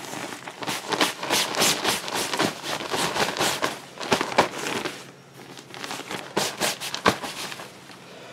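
Clothing tipped out of a bag onto a carpeted floor and handled: irregular rustling and crinkling of fabric and nylon, with a few sharper crackles.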